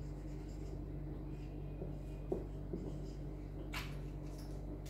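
Whiteboard marker being used: faint strokes and soft taps as a word is finished and underlined, with one short scratchy stroke about four seconds in, over a steady low hum.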